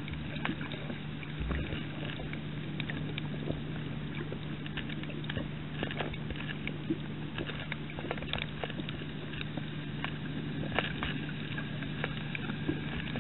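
Underwater sound on a coral reef, heard through the camera's housing: a steady low hum with many scattered sharp clicks and crackles.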